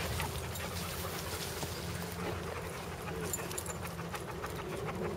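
A dog panting close by while it moves across dry leaf litter, with scattered crunching and rustling steps, over a steady low rumble.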